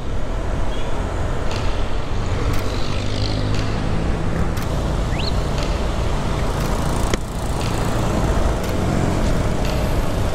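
Motorcycle on the move at road speed: its engine running under heavy wind rush on the microphone, with road traffic around. The sound dips briefly about seven seconds in.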